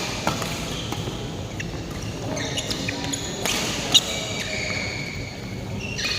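Badminton doubles rally in a sports hall: sharp racket hits on the shuttlecock, the loudest about four seconds in, and many short high squeaks of court shoes on the floor.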